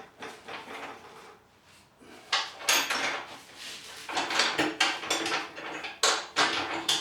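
Irregular metallic clanks and rattles, several knocks in quick clusters, as steel stock is handled and clamped in the chop saw's screw vise. The saw motor is not running.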